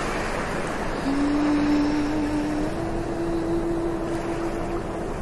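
Ocean surf breaking on a sandy beach, a steady wash of noise. Over it, a soft melody of long held notes: one begins about a second in and steps up to a higher note near the middle, fading out shortly before the end.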